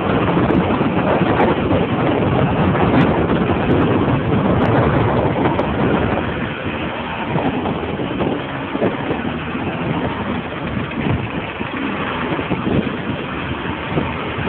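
Romet Kadet 50 cc two-stroke moped engine running while riding along, with wind rushing over the microphone. It is louder for the first six seconds or so, then eases off a little.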